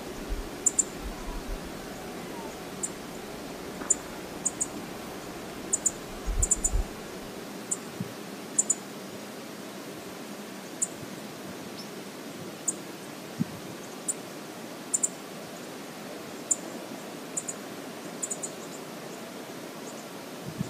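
Steady rush of flowing river water, with short high ticks about once a second, often in pairs.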